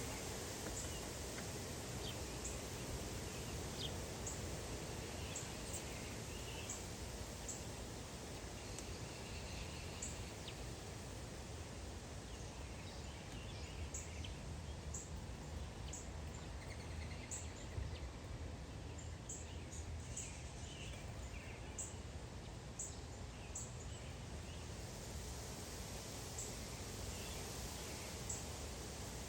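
Small songbirds chirping and calling, with many short, high chirps scattered throughout, over a steady low outdoor background noise.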